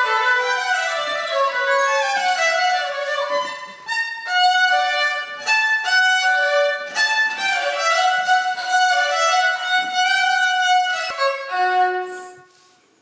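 Solo violin playing: quick running passages in the first seconds, then longer held notes, fading out near the end.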